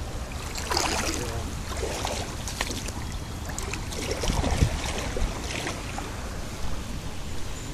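Wind rumbling on the microphone over the rush of flowing creek water, with a few faint knocks.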